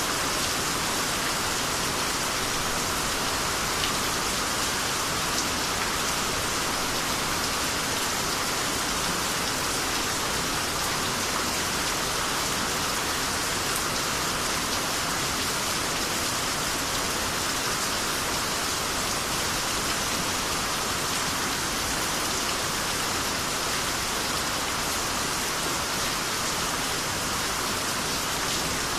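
Steady rainy-season rain falling and pattering on surfaces, an even hiss with a few sharper drop ticks.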